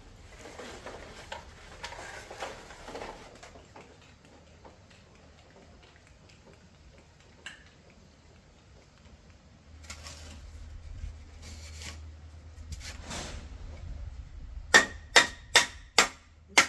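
Faint handling and rustling, then near the end a quick run of sharp hammer blows, about four a second, each with a short metallic ring, during bamboo fence building.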